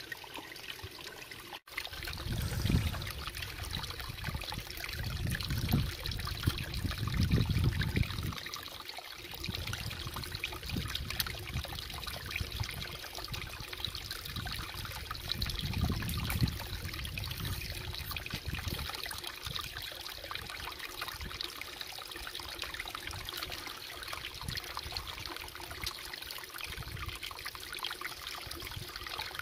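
Water trickling steadily, swelling into a deeper rush twice.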